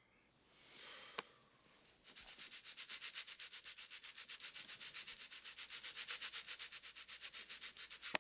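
A breathy inhale and one sharp click in the first second or so, then rapid, even rubbing strokes, about six a second, from about two seconds in: someone rubbing or scratching in bed.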